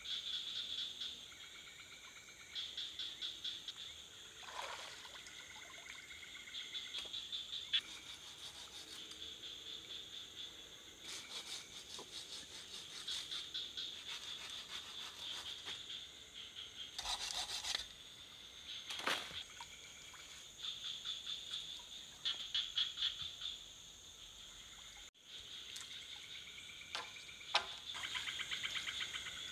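Forest insects and frogs calling in a steady, rapidly pulsing high chorus, with shorter calls coming and going. A few sharp knocks or clicks come about halfway through.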